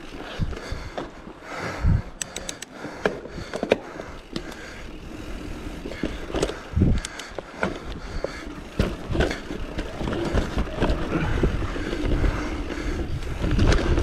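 Mountain bike riding down a dirt forest trail: tyres rolling over dirt with rattling clicks and knocks from the bike over bumps, and recurring low rumbles from wind on the camera microphone.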